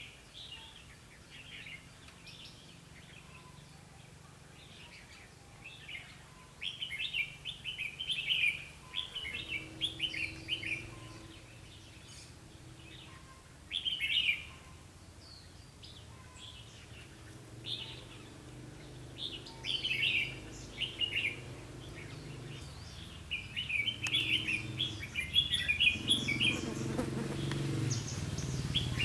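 Red-whiskered bulbuls singing in short, bright phrases, repeated many times with gaps between. A low engine hum comes in about a third of the way through and grows louder near the end.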